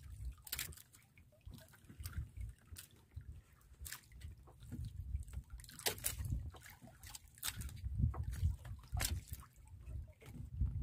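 Sea water sloshing against the hull of a small wooden outrigger boat, with irregular small splashes and drips as a wet handline is pulled in by hand.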